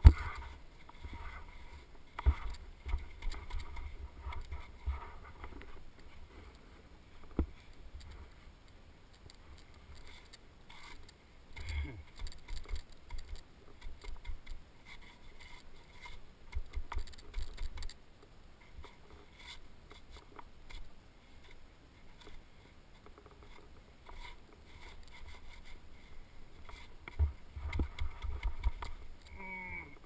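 Snow crunching and scraping against a head-mounted camera as a snowboarder shifts about on a snow-covered rock, with scattered knocks and bursts of low rumble on the microphone. The loudest knock comes right at the start.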